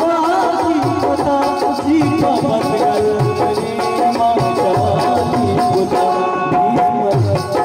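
Live Balochi folk music: a harmonium's sustained reed tones and a steady rhythm of hand-drum strokes accompanying a male singer.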